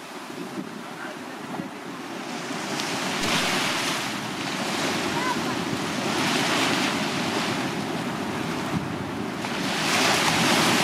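Small waves breaking and washing up a sandy beach. The surf hiss swells and fades every three seconds or so, and the loudest surge comes near the end.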